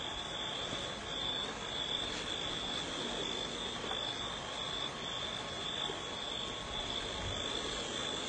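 Night-time chorus of calling animals: a steady high-pitched trill, broken by brief gaps about once a second, over a constant hiss.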